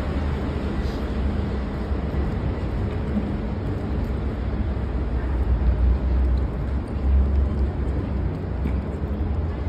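A car driving past near the start, over a steady low rumble that swells a couple of times.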